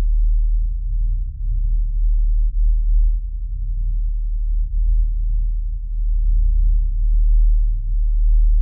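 Deep, dark rumble sound effect: a very low drone whose loudness swells and dips unevenly.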